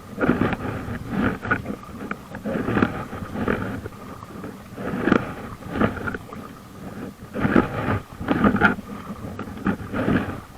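Paddle strokes splashing in the water about once a second, with wind buffeting the microphone in uneven gusts.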